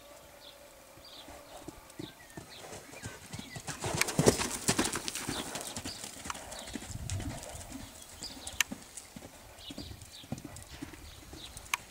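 Hoofbeats of a young Trakehner horse cantering loose on a sand arena, loudest about four to five seconds in as it passes close by.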